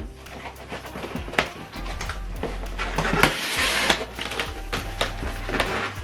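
Background music with a steady low bass, under handling noises from unboxing: scattered clicks and knocks, with a rustle of packaging about three seconds in.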